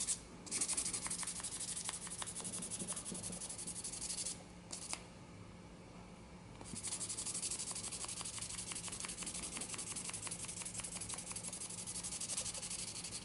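Wet sanding of a vulcanite pipe stem with 320-grit sandpaper on a nail-board sanding stick, to take off the oxidation: quick, even back-and-forth rubbing strokes. The strokes pause for about two seconds around the middle, then resume.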